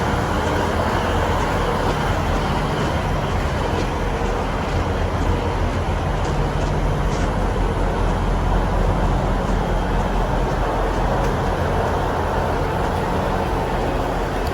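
Steady low drone and rumble of a train running.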